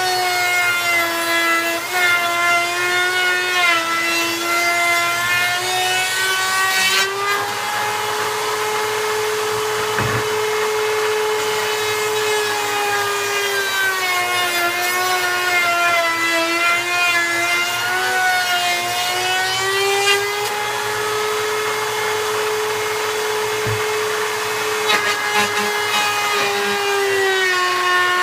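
A power tool's electric motor running continuously as the wooden staff is worked, its whine sagging and recovering in pitch as it takes and loses load.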